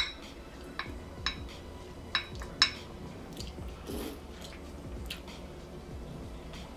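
Blue lip mussel shells clinking against a small glass bowl as they are picked out by hand: five sharp clinks with a short ring in the first three seconds, then a softer sound about four seconds in as a mussel is put in the mouth, and a few lighter taps after.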